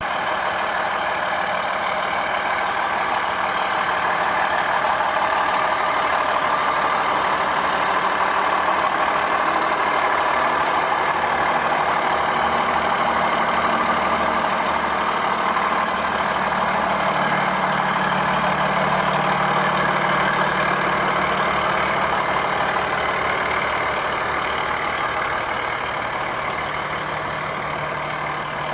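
Diesel engine of a 2020 Freightliner M2 wrecker idling steadily, growing slightly fainter near the end.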